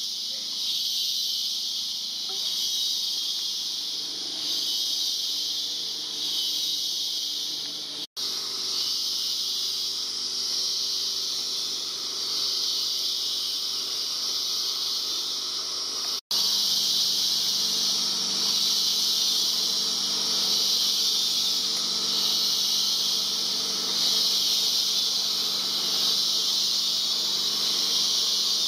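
Rainforest insect chorus: a loud, steady high-pitched buzz that swells and fades slightly every second or two. It breaks off for an instant twice, about eight and sixteen seconds in.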